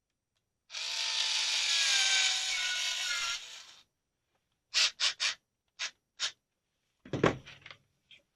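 Metal parts of a single-shot .22 rifle's action being fitted back together: a long scraping rub lasting about three seconds, then a few sharp clicks and knocks.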